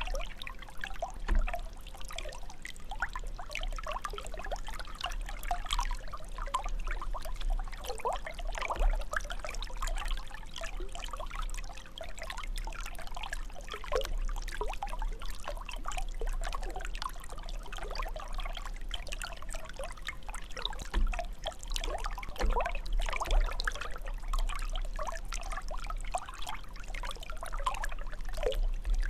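Water jet of a fountain splashing and trickling down steadily.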